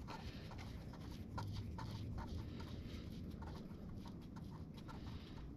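Faint, irregular light ticks and rubbing from fingers spinning the primary/transmission drain plug of a Harley Sportster into its threads by hand, over a low steady room rumble.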